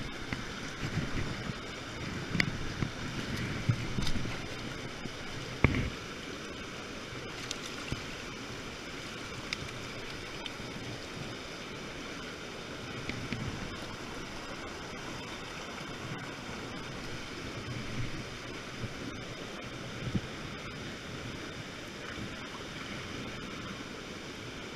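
Steady rushing of river water, with a few sharp knocks and handling rustles in the first six seconds.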